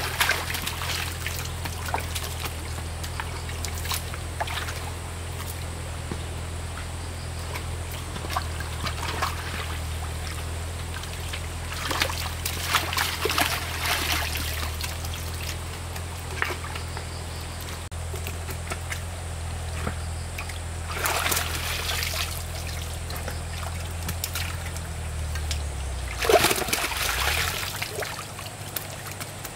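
Water trickling and splashing, with louder splashes now and then, over a steady low motor hum that falters and drops about 26 seconds in, at the loudest splash.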